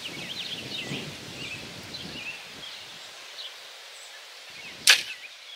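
A Hoyt RX1 compound bow fired once, about five seconds in: a single sharp crack as the string is released. Small birds chirp throughout.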